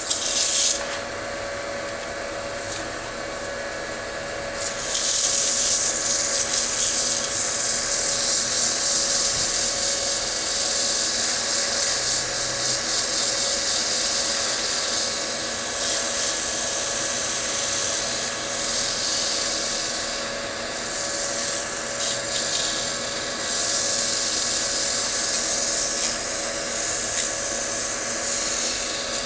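Wood lathe running steadily, with abrasive held against the spinning wooden bowl to give a loud sanding hiss. The hiss stops briefly about half a second in, leaving the lathe's hum, and comes back about five seconds in, rising and falling with the pressure on the paper.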